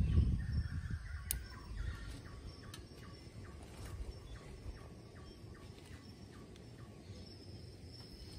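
Forest ambience: a call repeating steadily about twice a second, typical of insects, with a thin steady high insect tone starting about seven seconds in. A low rumble fades out in the first second.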